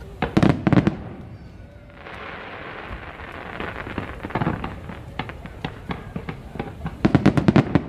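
Fireworks display: a quick volley of loud bangs in the first second, then a steady crackling haze with scattered pops, and a rapid cluster of bangs about seven seconds in.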